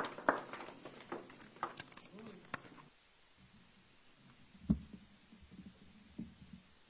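Papers and a book handled at a wooden pulpit, heard through the pulpit microphone. Scattered clicks and faint voices fade out over the first three seconds. A low thump comes about five seconds in, and a softer knock follows near the end.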